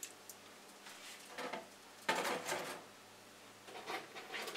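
Plastic model-kit runners in their clear plastic bags rustling and crinkling as they are handled and moved away, in a few short bursts, the loudest about two seconds in.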